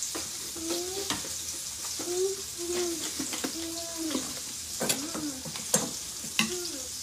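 Steak frying in a pan, a steady sizzling hiss, with several sharp clicks and clatters of handling and a few short high voice sounds.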